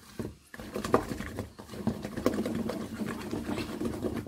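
Wooden spoon stirring and scraping thick peanut butter cookie dough in a ceramic mixing bowl: an irregular run of soft scrapes and knocks.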